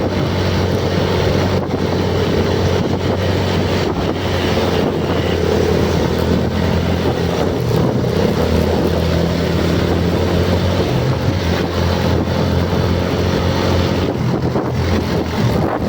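An engine running steadily with a continuous low hum, and wind rushing over the microphone.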